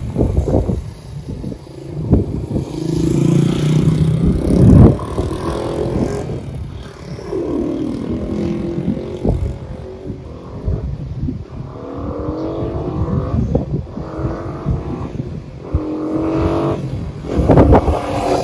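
1970 Honda CL100's 99 cc single-cylinder four-stroke engine accelerating hard through the gears as the bike rides around and away. Its pitch climbs, breaks off at each shift and climbs again, several times over.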